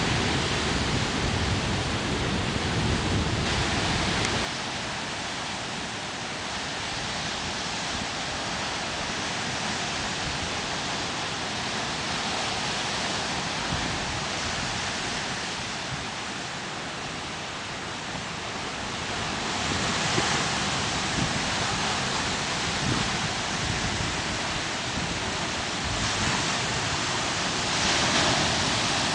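Atlantic surf washing steadily against the coast, swelling louder around twenty seconds in and again near the end. Wind rumbles on the microphone for the first few seconds and drops away abruptly about four seconds in.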